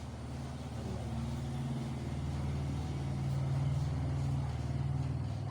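A motor engine running steadily with a low hum, a little louder past the middle.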